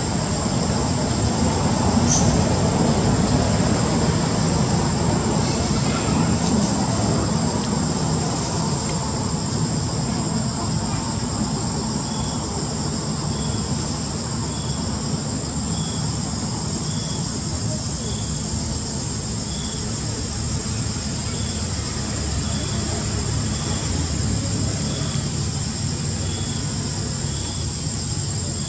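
Steady high-pitched drone of insects such as crickets or cicadas over a low rumbling background, joined from about twelve seconds in by a short high chirp repeating about once a second.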